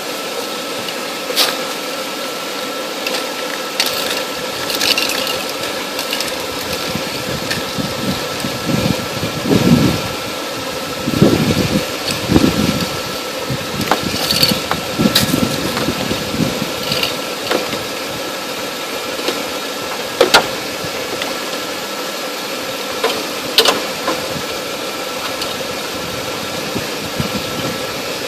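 A car engine idling steadily: the uploader's own 1999 Buick Park Avenue with its 3.8-litre V6, running to give a jump start. Over it come scattered sharp clicks and clanks, and a spell of heavier knocking and handling noise in the middle, as the jumper cable clamps are fitted to the batteries.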